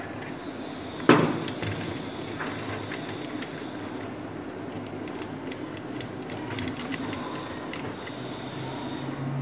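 Handling noise of a wire being threaded across the terminals of a plastic modular switchboard: light clicks and rubbing, with one sharp knock against the board about a second in, over a steady low background hum.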